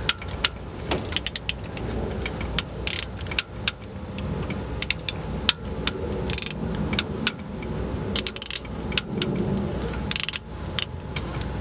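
Socket wrench ratchet clicking in short runs while tightening the camshaft sprocket bolts, with scattered single clicks and taps of the tool on metal.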